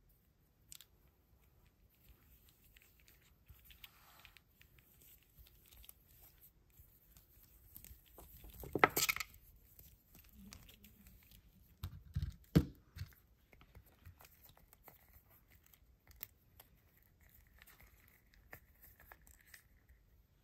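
Plastic novelty earbuds, their thin cords and a rubbery cord-winder case being handled: faint rustling and small clicks of plastic. A louder scraping rustle comes about nine seconds in, and a few sharp knocks follow around twelve seconds.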